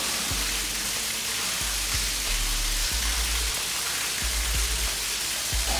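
Water running and splashing steadily onto a hard floor, a continuous hiss.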